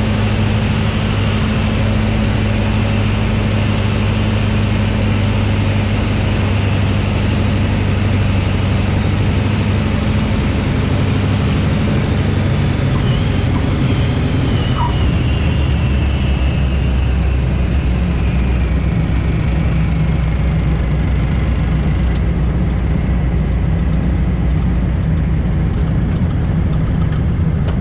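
Van's RV-6 light aircraft heard from inside the cockpit, its piston engine running at low power on short final. About halfway through it is on the runway: the engine note drops and the rush of air falls and fades as the plane slows on the landing roll.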